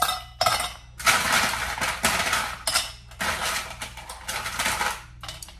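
Ice cubes dropped by the handful into a metal wine tumbler, clattering in several rattling stretches as it is filled.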